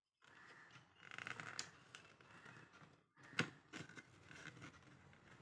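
Small plastic parts of a brush-cleaning box being worked and pushed into place by hand: faint scraping and rubbing of plastic, a quick run of rattling clicks about a second in, then a few separate clicks.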